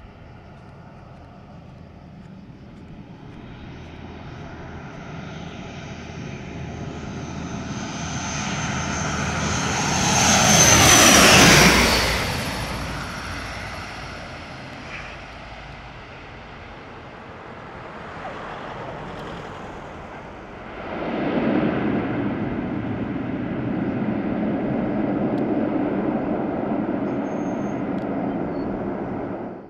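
Airliner passing low overhead on its landing approach: its engine noise builds to a loud peak about eleven seconds in, dropping in pitch as it goes by, then fades. About twenty-one seconds in, a second loud, steady rush of engine noise starts suddenly and runs until it cuts off abruptly.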